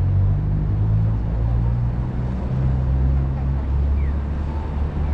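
Steady low rumble of city street traffic at a road junction, with faint distant sounds from the street above it.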